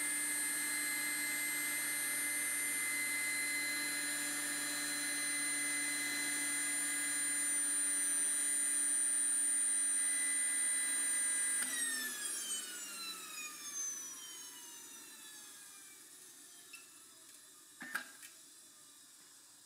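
Model jet turbine spinning with a steady whine during its cool-down cycle, then winding down in falling pitch from about twelve seconds in and fading out. A short sharp click sounds near the end.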